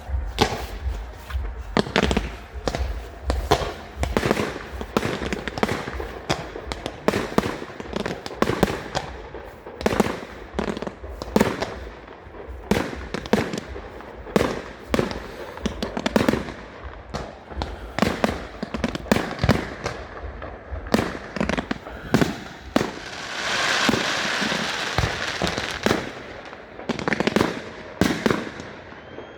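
Fireworks display: a rapid, continuous run of sharp bangs from bursting shells, several a second. About three-quarters of the way through, a few seconds of steady hiss sound under the bangs.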